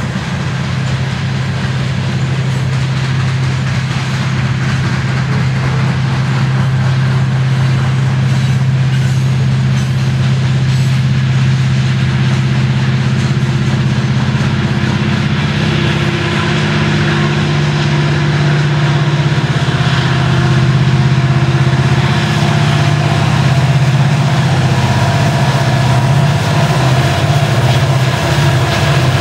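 Mid-train helper diesel locomotives (Montana Rail Link SD70ACe units) pushing a loaded coal train up the grade. Their engines make a steady deep drone that grows louder as the units come alongside, shifting slightly in pitch about halfway through.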